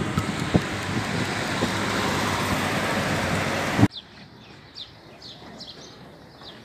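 Steady road-traffic noise that cuts off abruptly about four seconds in. A much quieter street sound follows, with faint, short, high chirps.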